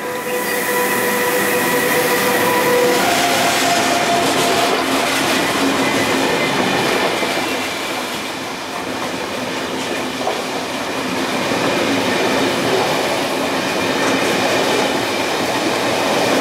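Kowloon–Canton Through Train's double-deck passenger coaches passing at speed, with a steady rumble and the clatter of wheels over the rails. A held steady tone sounds for the first few seconds, then a higher one briefly around three to four seconds in.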